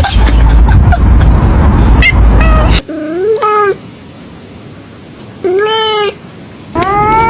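A domestic cat meowing twice, short calls that rise and fall, about three and five and a half seconds in. Before them is a loud rushing noise with a few short chirps, and near the end a long note with an even wobble begins.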